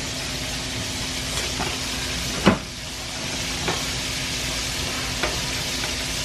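Eggs frying in a skillet: a steady sizzle, with one sharp knock about two and a half seconds in and a few lighter clicks.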